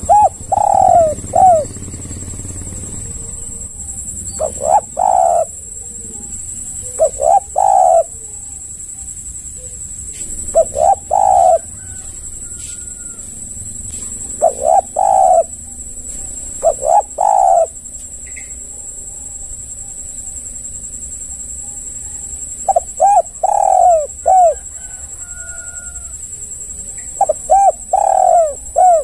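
Spotted dove cooing in short phrases of two to four notes, a phrase every few seconds, with a longer pause in the middle. A steady high-pitched drone runs underneath.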